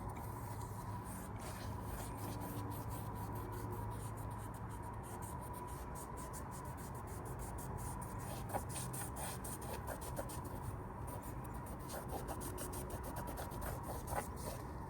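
Rubbing and scraping with scattered small clicks and ticks, over a steady low hum.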